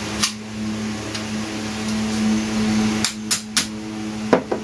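Sharp metal clicks and taps from airgun parts being worked by hand: one near the start, then a quick run of four near the end, over a steady low hum.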